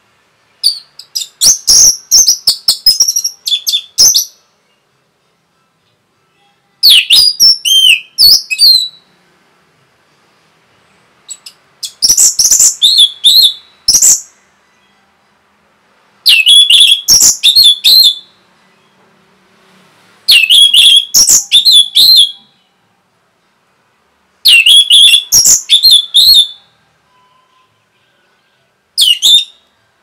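Orange-headed thrush (anis merah) singing: seven loud bursts of rapid, high-pitched, choppy song phrases, each one to three seconds long, with pauses of a few seconds between them.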